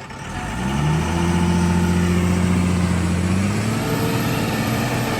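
Heavy vehicle's diesel engine revving up about half a second in, then running hard at high, steady revs as it climbs an earthen ramp under load; the pitch dips slightly near the end.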